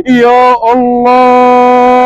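Male race commentator's voice singing out a short phrase, then holding one long, steady sung note, the drawn-out chanting delivery of Gulf camel-race commentary.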